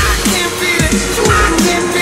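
Loud backing music with a heavy beat and repeated deep bass notes that fall in pitch.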